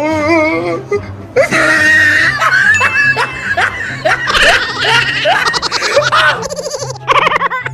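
Laughter, a run of short rising cries and pulsed bursts, over background music with a steady repeating bass line.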